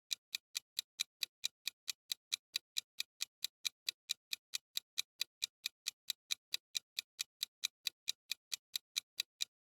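Clock-tick sound effect of a quiz countdown timer: even, sharp ticks at about four and a half a second.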